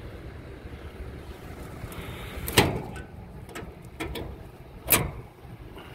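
Two loud, sharp knocks about two and a half and five seconds in, with a few lighter clicks between them, over a steady low background noise.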